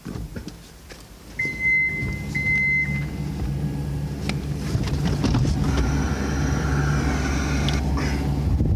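John Deere 324G skid loader's diesel engine starting about a second and a half in and then running steadily, growing a little louder near the end. Two short high beeps sound just after it starts.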